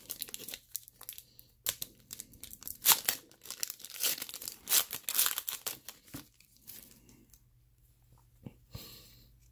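Foil wrapper of an NBA Hoops trading-card pack being torn open and crinkled by hand: a run of rips and crackles for about six seconds, then quieter handling of the cards near the end.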